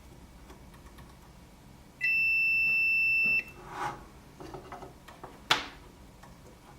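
Multimeter continuity tester beeping once, a steady high tone lasting about a second and a half. Light handling clicks follow, with one sharp click near the end.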